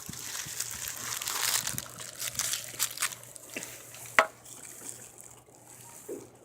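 Crinkling and rustling of a firework's wrapping being pulled off by hand, busiest in the first couple of seconds, with scattered sharp clicks and one louder snap about four seconds in.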